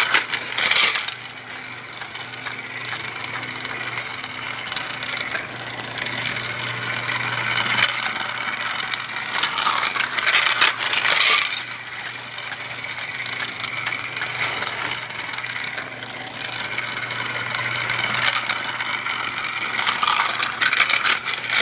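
Battery-powered toy trucks running on flexible plastic track and a 3D-printed ramp. A small electric motor hums steadily under a continuous clicking rattle of plastic wheels over the track links. The rattle swells louder three times: at the start, about ten seconds in, and near the end.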